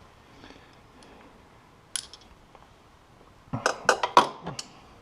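Metal tools and exhaust parts clinking and knocking while being worked by hand: one sharp click about two seconds in, then a quick run of metallic clinks and knocks near the end.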